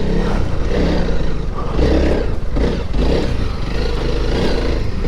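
Honda CRF300L Rally's single-cylinder four-stroke engine pulling the bike up a rocky off-road climb, its note swelling and dropping with the throttle.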